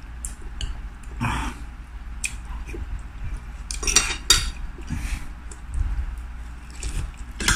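Spoon and fork clicking and scraping on a plate and bowl, with chewing and mouth sounds of someone eating, in short scattered clicks and a few louder bursts.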